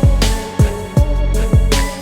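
Background music with a heavy hip-hop beat: deep kick drums with sliding bass and sharp snare hits over a melody.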